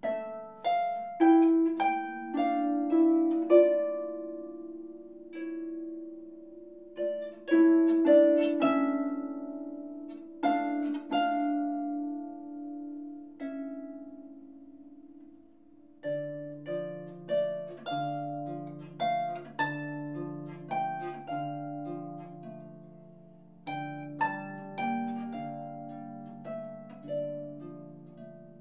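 Solo floor harp played by hand: plucked melody notes and chords that ring on after each pluck. After a short lull, a lower bass line comes in under the melody about sixteen seconds in.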